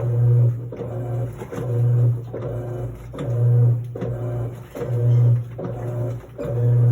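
Electrolux LT09E 8.5 kg washing machine in its wash phase: the motor hums in repeated strokes of about a second, starting again about every second and a half as it drives the wash back and forth.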